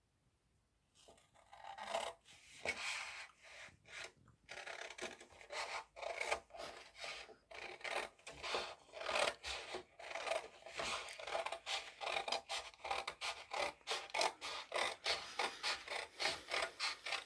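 Scissors cutting a long strip of coloured paper along a folded crease: a run of quick snips with paper rustle, starting about a second in.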